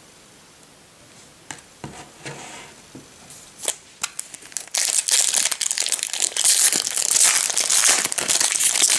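Foil wrapper of a Topps Chrome trading-card pack crinkling as it is opened by hand and the cards are pulled out. A few sharp crackles come first, then from about halfway the crinkling turns loud and continuous.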